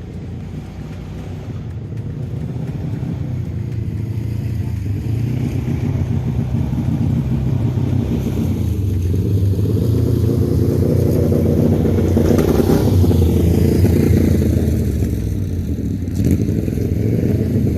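A motor vehicle's engine running as it drives in, getting steadily louder for about twelve seconds. It then sweeps past with a falling pitch and fades a little near the end.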